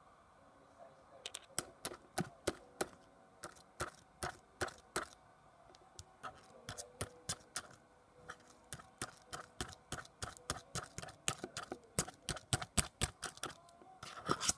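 Sharp, irregular clicks and pops, several a second, from a clear plastic cup of slime being tilted and pressed in the hand.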